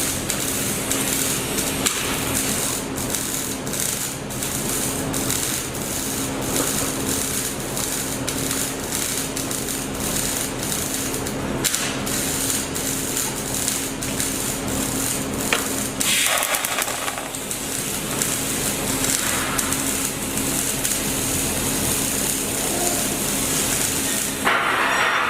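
Welding arc crackling steadily on a 6G-position pipe joint, with many sharp clicks over a constant hum. The crackle changes character about two-thirds of the way through and again just before the end.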